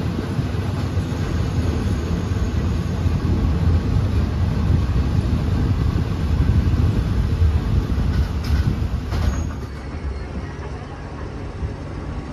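Passenger train running, a steady low rumble with wind noise. Two brief knocks come shortly before it quietens a little about ten seconds in, leaving a steady low hum.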